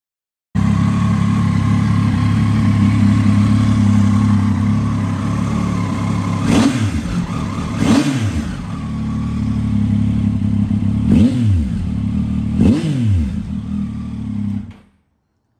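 A Triumph Tiger 800 XRT's three-cylinder engine idling in neutral and revved four times in quick blips, each rising and falling back to idle. The engine sound starts suddenly and cuts off abruptly near the end.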